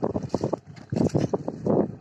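Muddy water sloshing and splashing in three irregular surges as bullocks drag a plough through a flooded field.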